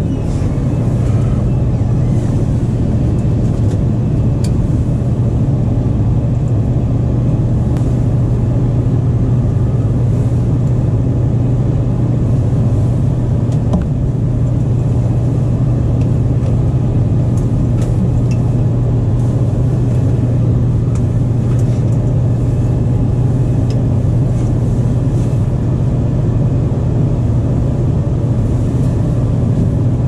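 Goodman gas furnace running with its front panel off: a loud, steady motor hum, with a few faint small ticks from handling the wiring.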